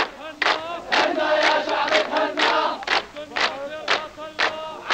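A group of Syrian soldiers singing an Arabic song together in chorus, keeping time with hand-claps about twice a second.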